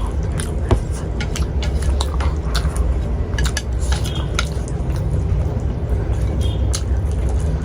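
Eating at a table: utensils clicking against plates at irregular moments, with chewing, over a steady low hum.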